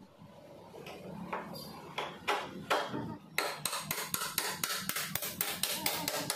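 Hammer striking metal at a scooter's engine mount. A few separate blows come first, then from about halfway through a quick, even run of taps, about four or five a second.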